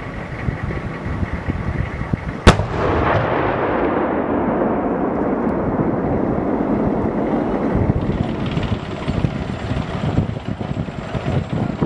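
M1 Abrams tank's main gun firing once about two and a half seconds in: a sharp report followed by a long rolling echo that fades over several seconds. From about eight seconds in, the tank's engine is heard running as it drives.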